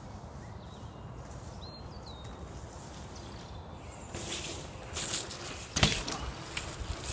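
Mountain bike on Schwalbe Billy Bonkers tyres rolling over a dirt pump track. A crunching, crackling rolling noise builds from about four seconds in as the bike comes near, with one sharp clack near six seconds.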